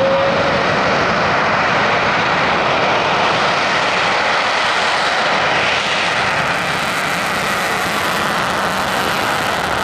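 Boeing F-15E Strike Eagle's twin Pratt & Whitney F100 turbofans running at high power for the takeoff roll, with the afterburners lighting.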